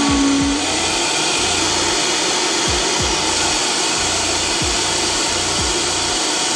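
Vitamix countertop blender running at high speed, pureeing pineapple chunks and water into juice, a loud steady whirring.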